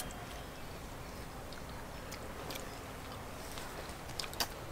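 Faint sounds of people eating by hand: soft chewing and a few light clicks over a steady, low background hiss.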